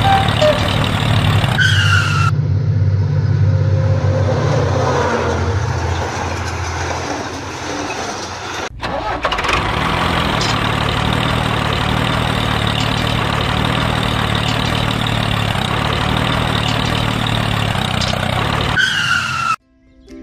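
Tractor engine running steadily at a low, even hum, with a brief break about halfway, cutting off suddenly near the end.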